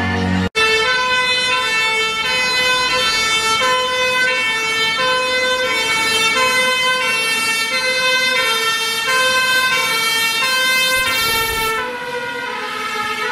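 Two-tone siren of a fire engine on an emergency run, stepping back and forth between a high and a low note. Near the end a short rush of noise comes in as the truck passes close.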